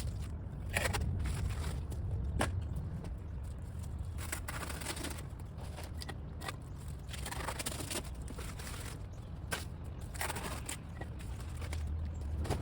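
Irregular scraping and crackling of dry leaves and stalks being cut and handled during pruning, with a few sharp snaps and a steady low rumble underneath.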